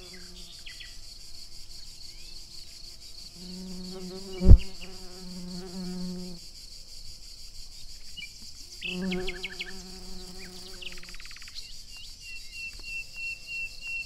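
A flying insect's wings buzzing at a steady pitch, passing in three stretches, over a steady high chirring of insects in the grass. A single loud thump about four and a half seconds in.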